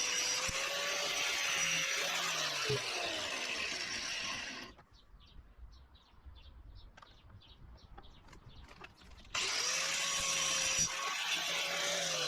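Angle grinder cutting through a steel anti-roll bar link, a loud abrasive whine over a wavering motor tone. It stops about five seconds in, leaving a few faint ticks and taps. Then it cuts again about four seconds later.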